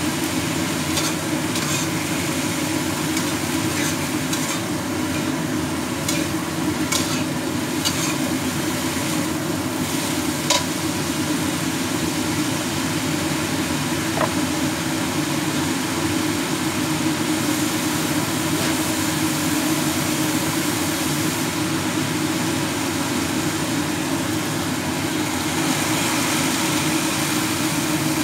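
Bean sprouts sizzling in a hot wok, with a metal spatula clicking and scraping against the pan a few times in the first ten seconds. A steady low hum runs underneath.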